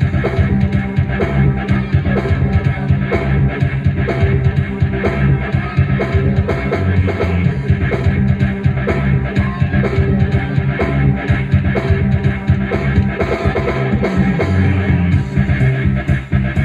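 Music from a Technics SX-KN7000 arranger keyboard: a rock-flavoured accompaniment with guitar, bass and drum kit, playing to a steady beat.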